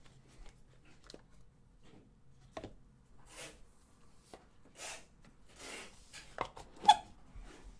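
Cardboard trading-card box being handled: the inner box slid out of its outer sleeve, with short rubbing swishes and light taps, and a sharper knock about seven seconds in as a piece is set down.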